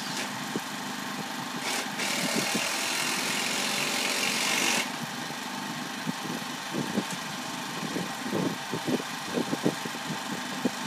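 A motor hums steadily. A hiss comes in about two seconds in and stops about five seconds in, and soft taps and clicks are scattered through the second half.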